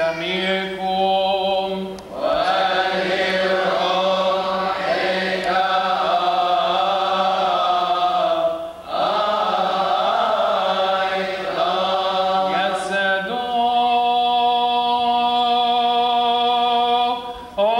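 Coptic Orthodox liturgical chant: unaccompanied voices singing long, drawn-out melismatic lines. It breaks off briefly about two seconds in and again about nine seconds in, and from about thirteen seconds in a single note is held very steadily.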